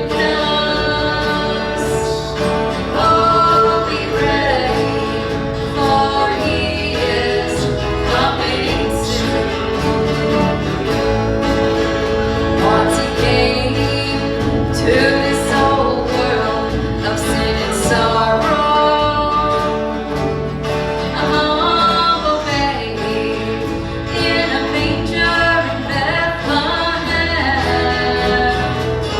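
Live gospel song in a country style: singing over a band with guitar.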